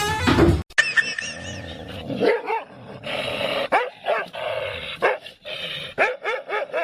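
A dog barking repeatedly in short, separate barks, several a second in clusters. A brief loud noisy sound comes first.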